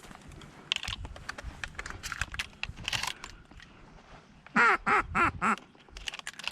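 Four loud duck quacks in quick succession, each dropping in pitch, about four and a half seconds in, after fainter scattered sounds.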